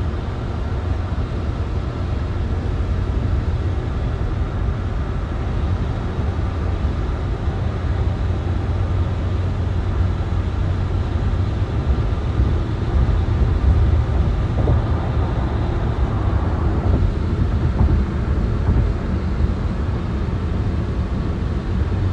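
Steady road noise heard from inside a car cabin at highway speed, with tyres running on wet pavement.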